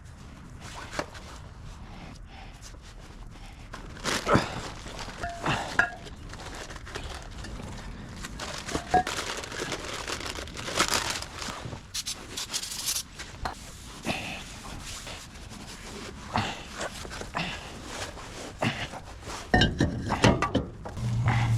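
Scattered metal clanks and knocks from tools and brake parts being handled during a front brake and rotor job, some with a brief metallic ring. A low steady hum starts near the end.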